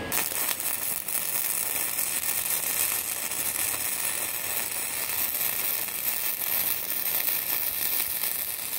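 Lincoln 140 flux-core wire-feed welder arc crackling and sizzling steadily as a bead is laid over a repaired crack in a cast-iron engine block, throwing spatter.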